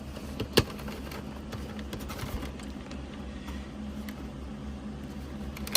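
Cardboard figure box being handled and opened after its tape was cut: faint rustles and light ticks with one sharp click about half a second in, over a steady low hum.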